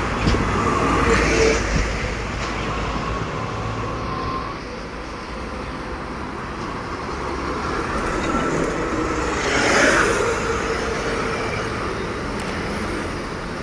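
Road traffic with heavy trucks passing close by: a continuous engine and tyre roar that swells as vehicles go past, loudest near the start and again about ten seconds in.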